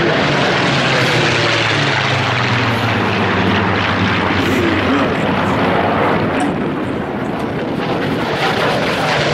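Spitfires and Messerschmitts, Second World War piston-engined fighters, flying past overhead in formation, their propeller engines making a steady drone that eases a little about seven seconds in.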